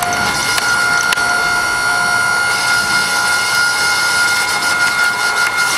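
9-ton electric hydraulic log splitter running under load, its motor and hydraulic pump making a steady whine as the ram pushes the wedge into a log, with a few sharp clicks in the first second or so.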